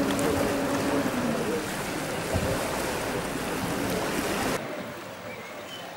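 Steady rushing outdoor noise of wind and surf, dropping quieter about four and a half seconds in.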